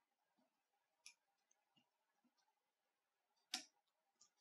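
A few small, sharp clicks of a blue plastic opening tool prying at the internal parts of an opened Nokia Lumia 930: a faint click about a second in, a louder click near the end, then a soft one just after.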